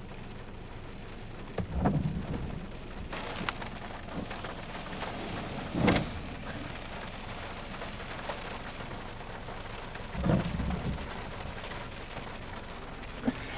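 Rain pattering steadily on a car's roof and windows, heard from inside the car. Three louder low surges break through, about two seconds in, midway, and about three-quarters of the way through.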